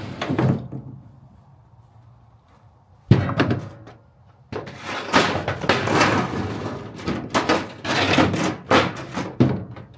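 Galvanized sheet metal being flattened with a rubber mallet: one sharp knock about three seconds in, then from about four and a half seconds a run of repeated knocks and sheet-metal clatter.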